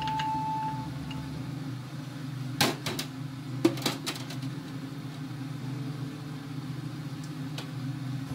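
A steady low hum, with a short high tone in the first second. Several sharp clicks and knocks of kitchenware come about two and a half to four seconds in: a wooden spoon and small dish against a cast-iron skillet while butter and oil melt in it.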